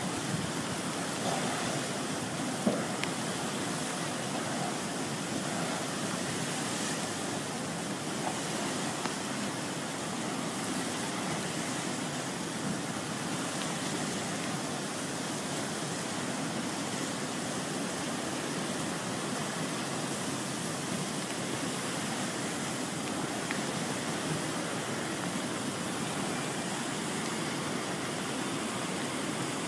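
Steady rushing of muddy flash-flood water pouring down a dry riverbed channel.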